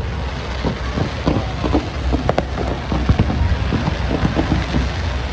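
Fireworks crackling: a dense, irregular run of small pops and snaps, with a few sharper cracks standing out among them.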